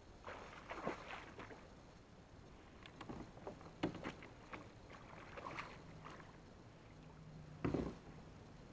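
Irregular splashing and sloshing of water in a river, with louder splashes about four seconds in and again near the end.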